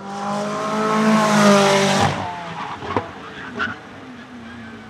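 McLaren 650S GT3 race car's 3.8-litre twin-turbo V8 running loud as it passes, swelling and then cutting off suddenly about two seconds in. Two sharp pops follow in the quieter part.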